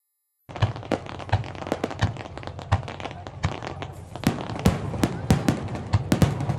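Aerial fireworks going off in quick succession: many sharp bangs and cracks, several a second, over a steady low rumble. The sound starts suddenly about half a second in.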